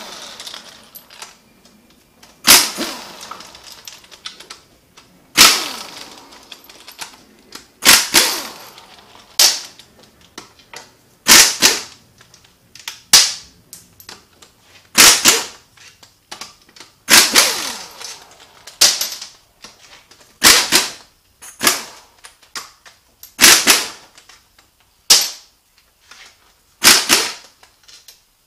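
Cordless impact wrench hammering out the bell-housing bolts of a VW 09A automatic transmission. It works in about fifteen short bursts, one every couple of seconds, with a quiet gap after each bolt.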